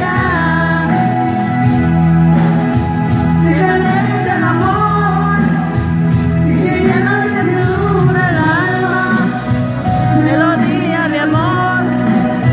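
A live band playing, with a lead singer's voice over guitars and drums, heard in a large hall.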